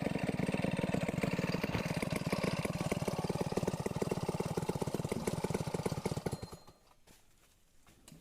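Stihl 070 two-stroke chainsaw idling with a steady run of firing pulses after a cut, then shut off about six and a half seconds in.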